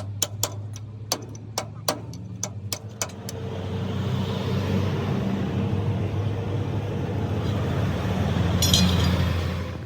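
A vehicle engine running with a steady low hum, with a series of sharp metallic knocks over it for the first few seconds. The engine noise then swells louder for several seconds and cuts off suddenly near the end.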